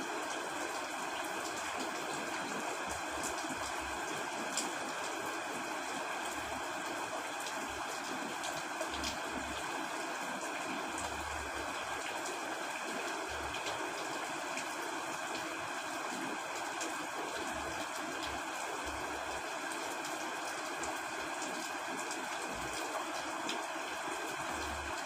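Steady heavy rain, an even hiss that does not let up.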